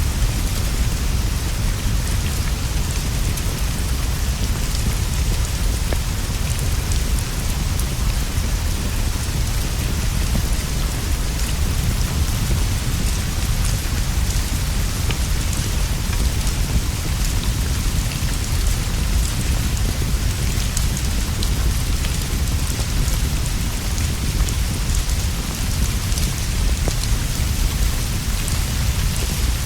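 Steady heavy rain falling on leaves and a straw roof, an even hiss over a continuous low rumble, dotted with scattered small ticks and drips.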